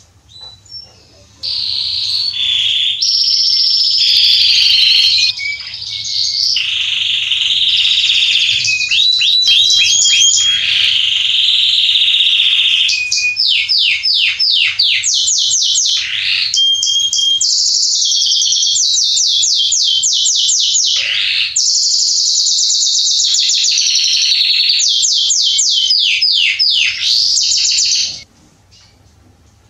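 Male Belgian canary singing one long, unbroken song of fast trills and rapid rising and falling sweeps. It starts about a second and a half in and cuts off suddenly near the end.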